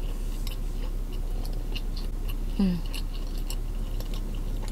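Close-miked chewing of a mouthful of corn dog, with small wet mouth clicks throughout and a brief hummed vocal sound about two and a half seconds in.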